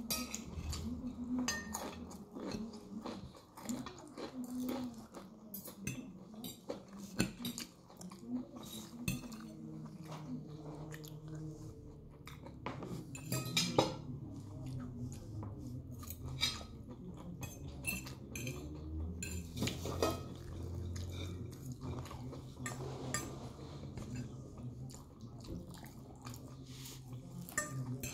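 Metal fork clicking and scraping against a ceramic plate as salad is picked up and eaten, with chewing between the clinks. The clicks come irregularly throughout, the sharpest about fourteen seconds in.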